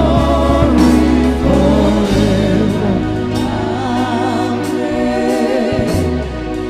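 Gospel choir singing with band accompaniment: held bass notes under the voices, with the bass changing about two seconds in.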